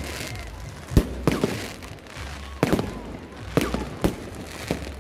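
Fireworks exploding: about six sharp bangs at irregular intervals, each trailing off in a short echo, over a steady low rumble.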